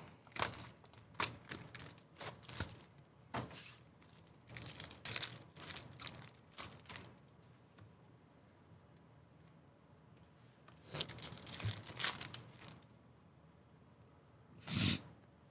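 Baseball card pack wrappers being torn open and crinkled by hand, in a run of short, irregular rips and rustles. After a quiet pause come a few more rustles, and one sharper rustle near the end.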